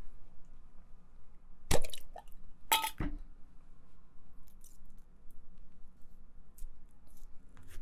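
Two sharp glass clinks, about a second apart, the second ringing briefly, from a glass jar of pickled onions being handled; then a few small faint clicks and taps as an onion is pushed onto a cocktail stick.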